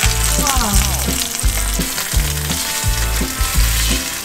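Thick pork steak frying in oil in a cast-iron skillet, a steady sizzle, under background music with a repeating bass line.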